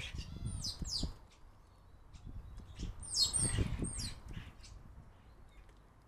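Common starlings at a wooden bird table giving harsh squawks and sliding whistles in two bouts, about half a second in and again around three to four seconds in. Soft knocks and scuffles come from the birds pecking and moving on the wooden table.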